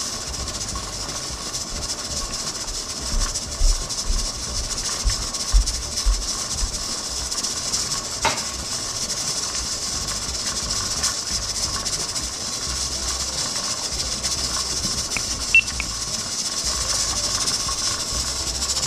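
Steam hissing steadily from the vent of a stovetop pressure canner under its weighted regulator, with a few soft knocks. The canner is coming up toward 10 pounds of pressure and the weight has not yet started to rock.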